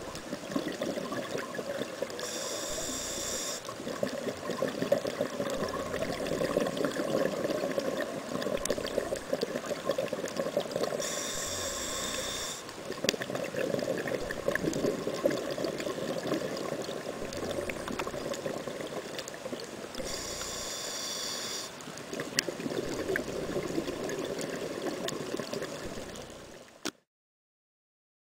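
Scuba regulator breathing heard underwater through a camera housing: three hissing inhalations about nine seconds apart, with long stretches of bubbling exhaust bubbles between them. The sound cuts out a second before the end.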